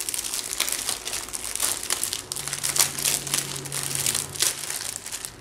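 Plastic packaging crinkling irregularly as hands handle a clear bag of diamond-painting drill packets.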